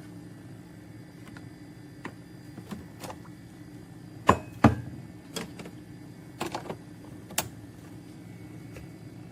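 Scattered clicks and knocks over a steady low hum, with two louder knocks close together about four seconds in.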